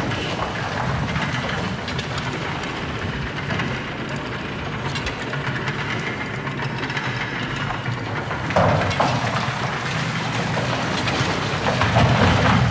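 Big Thunder Mountain mine-train roller coaster cars rattling along the track, with louder surges about two-thirds of the way in and again near the end.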